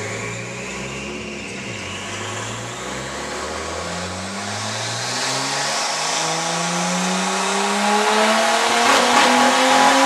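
Nissan Skyline R33 GTS-t's RB25DET turbocharged straight-six running under acceleration, its note rising steadily and growing louder.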